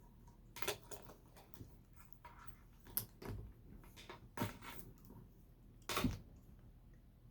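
LEGO plastic bricks being handled and pressed together: a handful of separate clicks and rattles, the loudest near the end.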